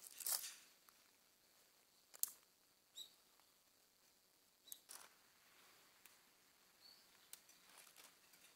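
Faint, scattered rustles and clicks of tent fabric and clips as a mesh inner tent is hung from its poles, the loudest about a quarter second in.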